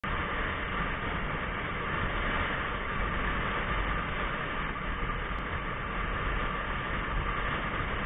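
Steady wind rush and road noise from a motorcycle riding in traffic, picked up by an action camera mounted on the bike.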